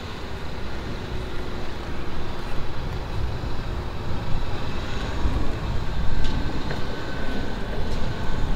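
Low, steady rumble of a vehicle, slowly growing louder.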